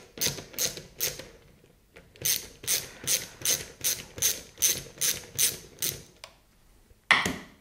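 Socket ratchet wrench turning a 10mm nut off a compressor mounting bolt: a few pawl clicks, a pause, then a steady run of clicks about four a second as the nut is spun loose. A short, louder clatter comes near the end.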